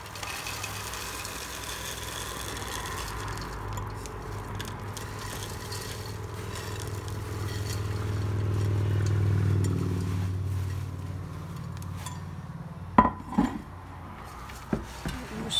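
Fried gram-flour boondi tipped into a pot of sugar syrup and mixed with a wooden spoon: a steady rustling scrape, with a low hum swelling in the middle. Near the end come a few sharp knocks of the spoon against the pot.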